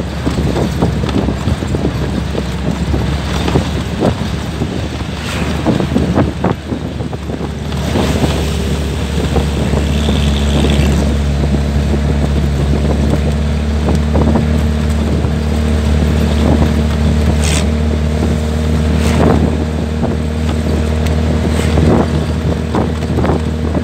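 Vehicle engine running steadily while moving along a road, with wind buffeting the microphone. The engine hum settles into a steady drone about eight seconds in, and scattered knocks and rattles come through.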